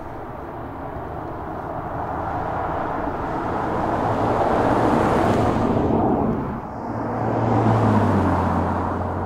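BMW 4 Series Convertible driving by at speed, engine and tyre noise swelling as it nears. After a brief dip about two-thirds in, a second pass-by follows, its engine hum dropping in pitch as it goes past near the end.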